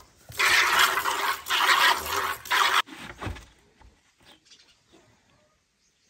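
Cow's milk squirting from the teats into a plastic bucket during hand milking: a run of hissing streams into the milk. It cuts off sharply just before three seconds in, leaving only faint sounds.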